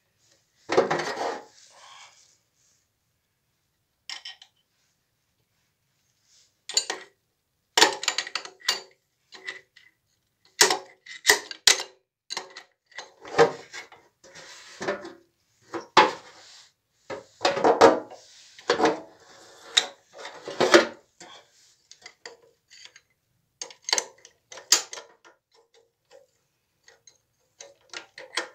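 Metal tools and engine parts clinking and knocking irregularly as pistons and connecting rods are taken out of a stripped-down Daewoo Damas engine. There is a quiet pause of a few seconds near the start.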